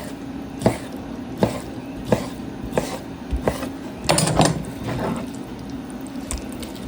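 Knife chopping sockeye salmon into cubes on a cutting board: a knock about every 0.7 seconds, then a longer, louder noise about four seconds in.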